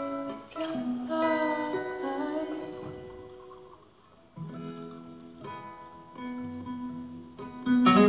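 Acoustic guitar playing a slow song, plucked notes ringing out and fading, with a near pause about four seconds in before the playing picks up again.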